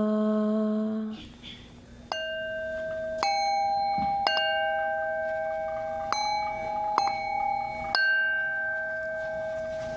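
A woman's chanted mantra syllable held on one note, ending about a second in; then metal singing bowls struck with a wooden mallet, six strikes over about six seconds, their different pitches ringing on and overlapping.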